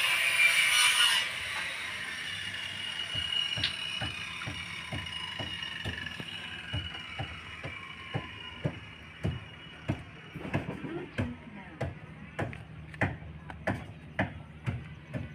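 A power tool runs with a high hiss, cuts off about a second in and winds down with a falling whine. Then comes steady hand hammering on timber, sharp knocks about two a second that grow louder toward the end.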